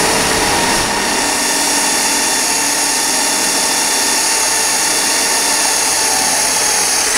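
Cordless drill running steadily at constant speed as it drills a hole for a mounting bracket into the side of a jointer/planer's cabinet, a continuous motor whine.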